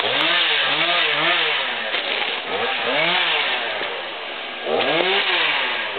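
Two-stroke chainsaw cutting through brush, its engine rising and falling in pitch as it revs up and eases off several times.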